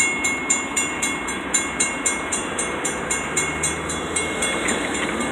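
Railroad crossing bell ringing rapidly, about four strikes a second, over the rumble of freight boxcars rolling past.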